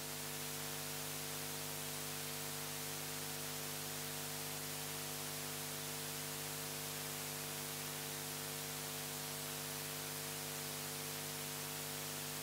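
Steady electrical mains hum with a layer of hiss under it, unchanging, as from an open microphone or sound system with no one speaking.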